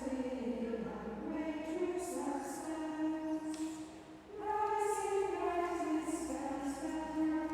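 Choir of nuns singing a chant in two long phrases, with a brief break for breath about four seconds in.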